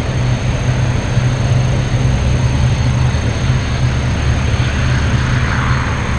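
Jet noise from a Boeing 737-800's CFM56-7B turbofan engines: a steady rumble and hiss, the rushing part growing stronger near the end.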